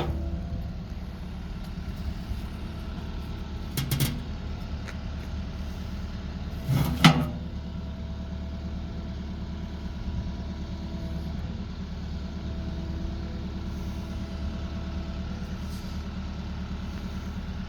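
The diesel engine of a JCB 86C-2 mini excavator runs steadily under hydraulic load while the bucket presses down and lifts one side of the machine, raising a track off the ground. Two sharp knocks are heard, a light one about four seconds in and a louder one about seven seconds in.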